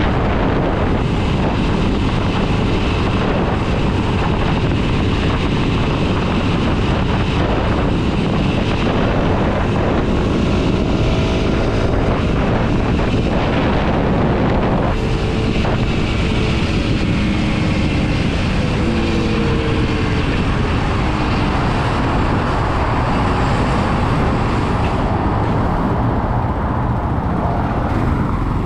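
Kawasaki KLX 230 SM's single-cylinder four-stroke engine running under way, mixed with heavy wind noise on the microphone. The engine's pitch rises and falls a few times around the middle.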